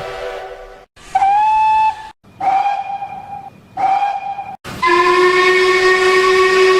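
A string of train whistle blasts spliced together with abrupt cuts. It opens with a chord whistle fading out, then comes a one-second whistle that bends up in pitch as it starts, then two shorter toots on one note. Near the end a longer, lower whistle sounds for about two seconds and is the loudest of them.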